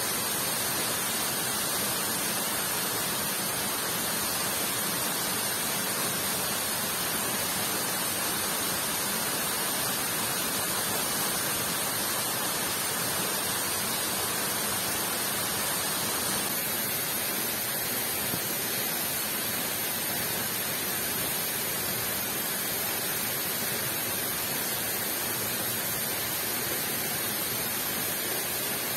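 Heavy rain and a waterfall blending into one steady, even hiss of falling water. Its tone shifts slightly about sixteen seconds in.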